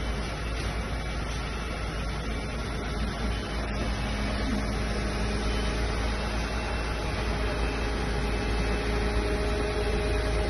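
Aerial ladder platform fire truck's diesel engine and hydraulics running steadily to work the boom and rescue basket, a deep drone with a faint steady whine that grows louder in the second half.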